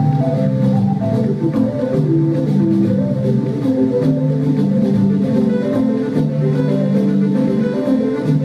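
Live instrumental music: overlapping lines of held notes stepping from pitch to pitch in a low-to-mid register, with a faint steady ticking pulse above them, heard from the back of the hall.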